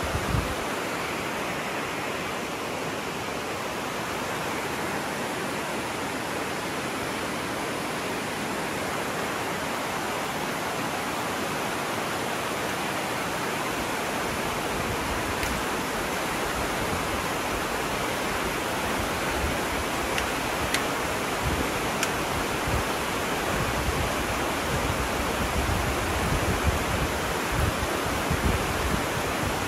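Steady rushing of a rocky river's rapids below, an even wash of water noise, with soft low thumps coming and going in the later half.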